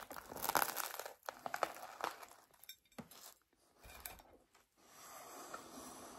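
Crisp crust of a bread roll crackling and crunching as hands squeeze it around a sausage. The crackles are densest in the first two seconds, a few single cracks follow, and a faint rustle comes near the end.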